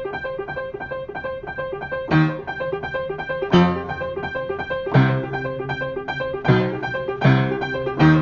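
Piano or keyboard music: a fast run of repeated notes, with accented low chords coming in about every second or so.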